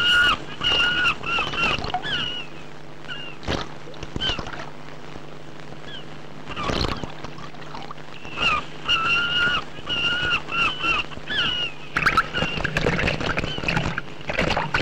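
Seabirds calling in quick series of short, inflected cries, in one bout at the start and another about eight seconds in, over a steady low hum with a few sharp knocks. Near the end, water splashing as a hooked fish breaks the surface beside the boat.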